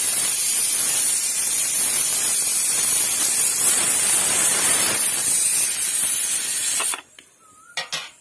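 Aluminium pressure cooker venting steam through its weighted valve: a loud, steady hiss that cuts off suddenly about seven seconds in. This is the cooker's whistle, the sign that it has come up to pressure. Two short knocks follow near the end.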